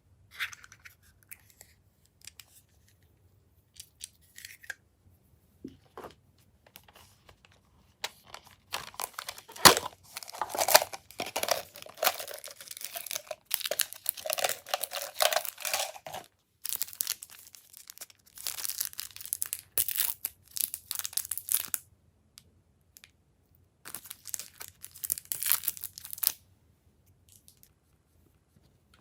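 Glossy slime being squished and stretched by hand, giving sticky crackling and popping in bursts with short pauses between. The first several seconds hold only a few faint clicks.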